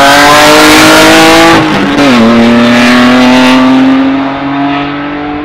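Race car engine at full throttle, pitch climbing, then dropping sharply on an upshift about two seconds in and climbing again as it pulls away, fading toward the end.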